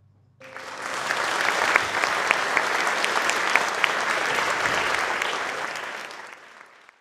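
Concert audience applauding, a dense clatter of many hands that starts suddenly about half a second in and fades away near the end.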